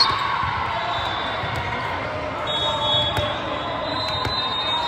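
Balls thudding on a gym floor, with a few brief high squeaks, in a large echoing hall.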